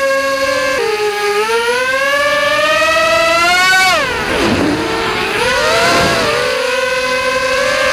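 The four 2205 2350kv brushless motors and propellers of a ZMR Slim FPV quadcopter whining in flight, heard from the onboard camera. The pitch climbs for a few seconds, falls sharply about four seconds in as the throttle drops, then rises again and holds steady.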